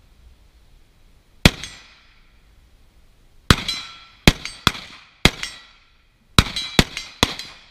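Carbine rifle fired eight times by a shooter lying prone: a single shot, a pause of about two seconds, then seven shots in quick uneven succession. Each shot has a short metallic ringing tail.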